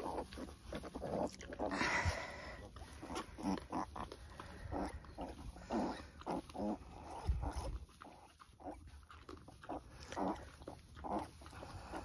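A sow and her newborn piglets making a quick string of short grunts and squeaks.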